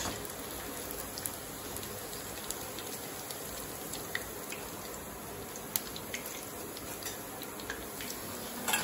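Hot oil sizzling steadily around batter-coated paneer cubes deep-frying in a kadai, with scattered small pops and crackles; the pieces are fried crisp.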